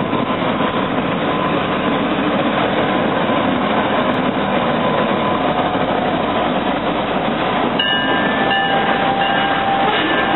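A Norfolk Southern freight train rolling past at close range, the diesel locomotive giving way to covered hopper cars: a loud, steady rolling noise of wheels on rails. High, steady squealing tones join about eight seconds in.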